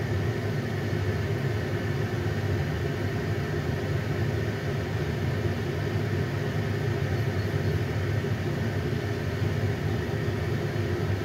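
A steady low mechanical hum with a rumble, unchanging in level.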